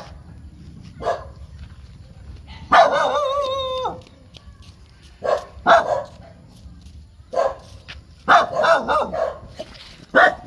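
Small black-and-tan dog barking in separate sharp barks every second or two. About three seconds in comes one longer bark, drawn out for about a second and falling in pitch. Near the end there is a quick string of barks.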